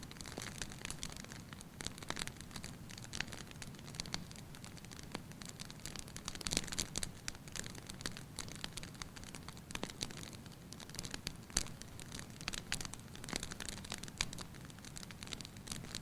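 Fire crackling in a fireplace: irregular sharp pops and snaps over a soft steady hiss and a low rumble, with the loudest pops about six and a half and eleven and a half seconds in.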